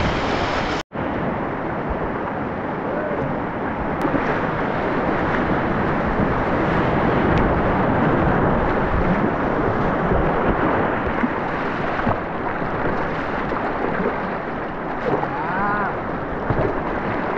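Whitewater rapids rushing and churning close around a kayak in a steady, loud wash of water noise. The sound cuts out for an instant about a second in.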